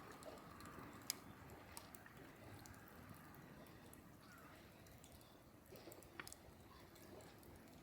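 Near silence: faint outdoor background with a few soft clicks, one about a second in and another near six seconds in.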